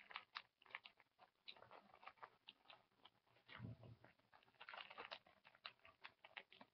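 Faint crinkling and rustling of paper-wrapped adhesive bandage packets being handled and packed away, a string of small crackles and ticks with a soft thump about three and a half seconds in.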